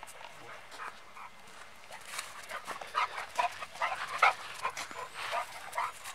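Dog making short whimpers and yips, with a quick run of them about three to five seconds in.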